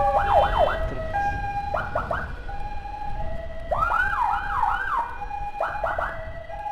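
Electronic emergency siren sounding in short bursts of quick rising-and-falling yelps, about four bursts of three to six yelps each, with a steady tone between the bursts and motorcycle road rumble underneath.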